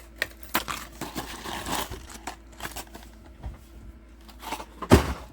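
Lure packaging being handled, with irregular clicks and rustling and a louder knock about five seconds in.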